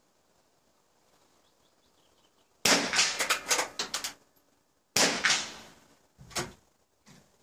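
Two .22 small-bore rifle shots about two and a half seconds apart, a running target double, each followed by a trailing echo. Fainter knocks follow.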